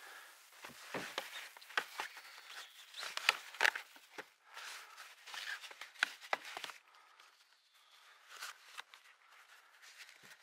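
Handling noises of a fabric cover being fitted over a stainless-steel fitting and tied down with cord: cloth rustling with irregular light clicks and knocks, busiest in the first half.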